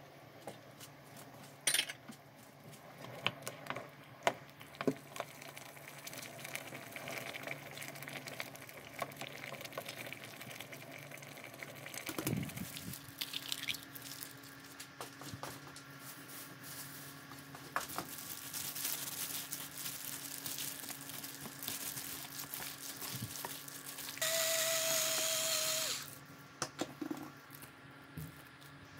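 Kitchen cooking sounds: a wooden spoon stirring a thick sauce in a stainless steel pot, with scattered clicks and knocks. Then hands in a plastic glove work raw pork cutlets through beaten egg. A steady low hum runs underneath, and near the end a loud whirring noise lasts about two seconds.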